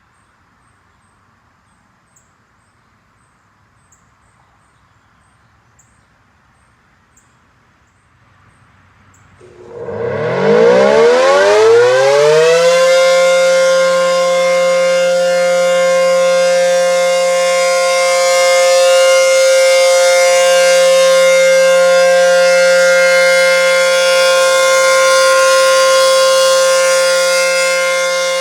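ACA P-10 civil defense siren starting its test. It comes in about a third of the way through, its pitch climbing for about three seconds, then holds a loud, steady tone.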